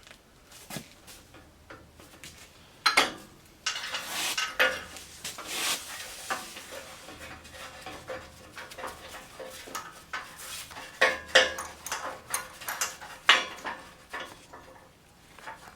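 Metal tools and parts clanking and rattling as they are handled, with irregular sharp clinks and a few louder clanks, like someone rummaging for a C-clamp.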